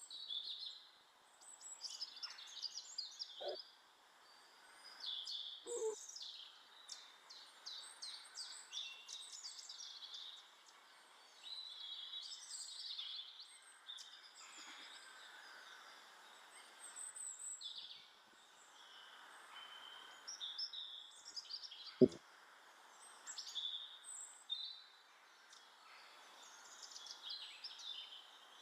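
Small garden birds calling and singing, with many short chirps and twittering phrases over faint background noise. A couple of soft thuds come early on the feeder, and one sharp knock about two-thirds of the way through.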